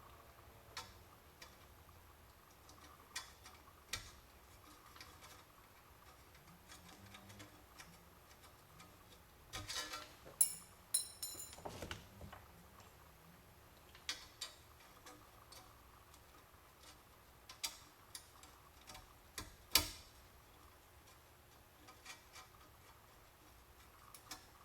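Faint, scattered metallic clicks and taps of pliers and small metal trim clips being worked onto studs in sheet metal. About ten seconds in comes a cluster of louder clinks with a short metallic ring.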